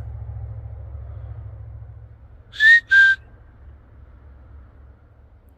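Two short, loud whistled notes in quick succession, the first rising slightly and the second steady, given as a call into the woods to draw an answer.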